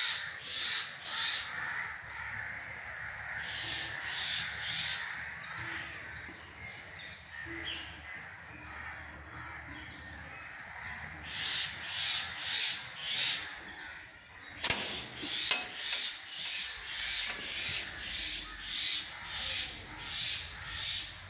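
Crows cawing in repeated runs of harsh calls, about two a second, over a steady high background din. Two sharp clicks less than a second apart come about three-quarters of the way in.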